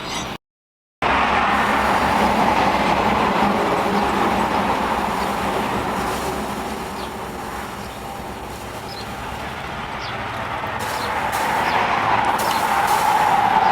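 Steady mechanical running noise with a hum near the middle of the range. It cuts out briefly just after the start, eases off in the middle and grows louder again near the end.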